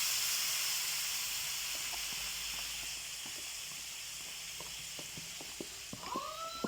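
Marinated chicken frying in hot oil in a pan: a steady sizzling hiss with scattered small pops of spattering. Near the end a short pitched tone rises and then holds.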